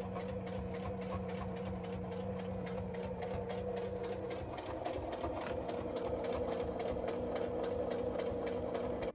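Domestic electric sewing machine stitching at a steady, fast pace: an even run of needle strokes over the motor's hum. It stops suddenly at the end.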